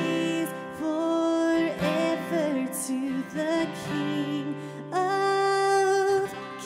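A woman singing a slow melody with acoustic guitar accompaniment, holding a long note about five seconds in.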